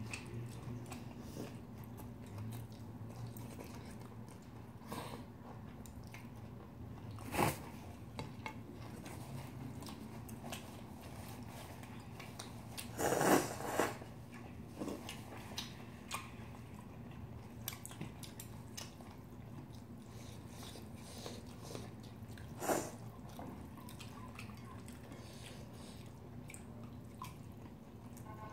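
Two people eating noodles and pork at a table: quiet chewing, noodle slurping and occasional chopstick clicks over a low steady hum. About halfway through there is a louder burst of about a second, a nose blown into a tissue.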